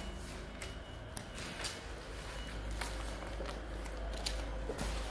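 Rustling and light taps of thin cherry wood veneer sheets being handled, a few sharp rustles standing out, over a low steady hum.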